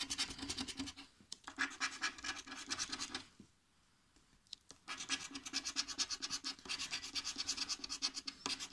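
Scratch card being scratched with a green scraper disc, rubbed quickly back and forth in rapid rasping strokes. About three seconds in the scratching stops for a second and a half, then starts again.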